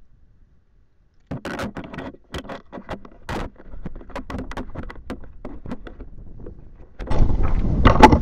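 Close clicks, knocks and scrapes of hands fitting a plastic camera module and a fin into a windsurf board, picked up by the camera's own microphone inside the module; they start about a second in. About seven seconds in, a loud rush of wind on the microphone takes over.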